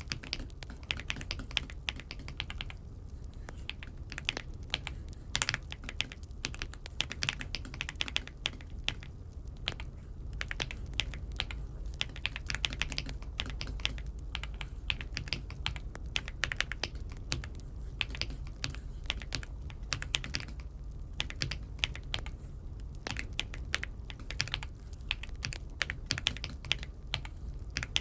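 Typing on an Aula F75 mechanical keyboard: quick, irregular keystroke clacks in runs with brief pauses, over a steady low hum.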